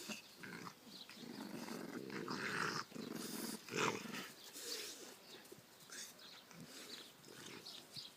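Dog and puppies growling, with short high squeaks scattered throughout.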